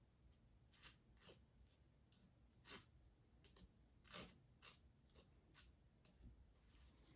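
Faint short scrapes of a metal palette knife spreading coarse texture gel on a canvas, several separate strokes with the loudest about four seconds in.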